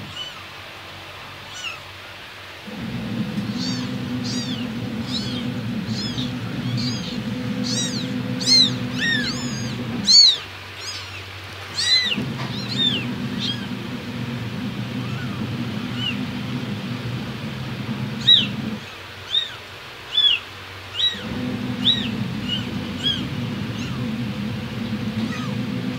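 Kittens mewing in many short, high-pitched calls, coming in quick runs in the first half and more scattered later, over a steady low hum that breaks off three times.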